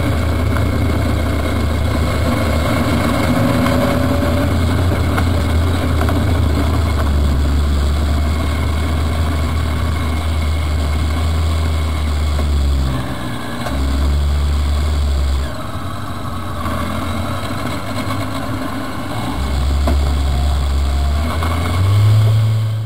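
Car engine running at low revs and idling as the car rolls slowly and stops. The note drops away briefly twice, then rises with a short rev near the end.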